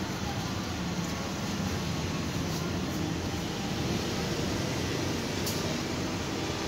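Steady low hum and hiss of background noise, with no distinct events.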